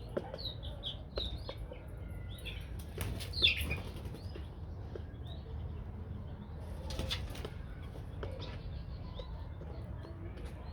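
Aseel chickens flapping their wings, with short high calls scattered throughout; the loudest call comes about three and a half seconds in.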